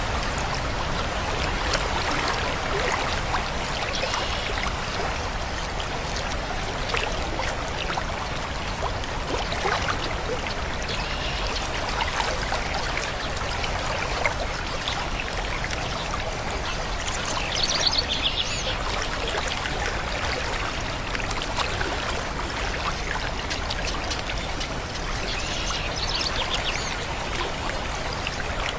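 Running water babbling and trickling steadily, like a stream, with a few short, high bird calls over it.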